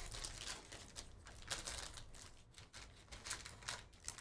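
Plastic card-pack wrapper crinkling as hands peel it open, in a run of soft, irregular rustles and crackles.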